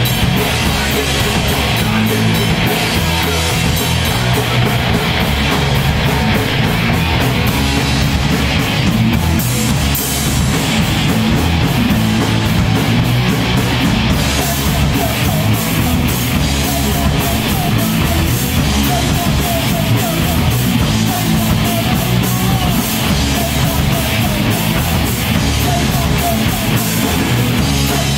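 A live rock band playing loud: electric guitars, bass and a drum kit driving on without a break.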